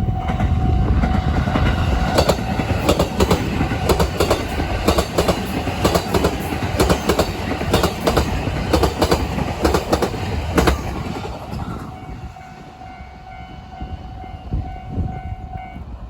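A train passing over a level crossing, its wheels clattering over the rail joints for about ten seconds before the sound falls away. The crossing's warning bell rings throughout and stops near the end.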